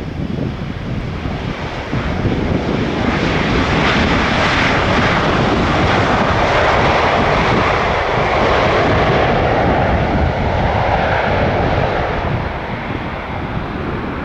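Boeing 777-300 airliner landing, its jet engine noise swelling about two seconds in and falling in pitch, then easing off near the end.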